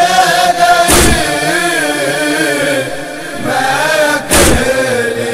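An Urdu noha, a Shia lament, sung as a slow, chant-like recitation by voices holding long wavering notes. Two heavy thumps cut across it, one about a second in and one near the four-and-a-half-second mark.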